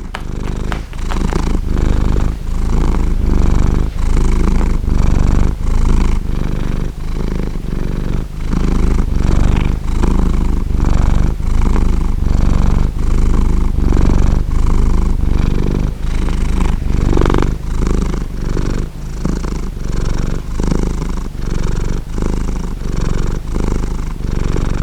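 Domestic cat purring loudly, a low rumble that pulses in a steady, regular rhythm of a little under two pulses a second.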